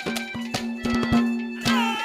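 Live Haryanvi ragni folk accompaniment: a held low drone note under quick, regular drum strokes, with a wavering melody line coming in near the end.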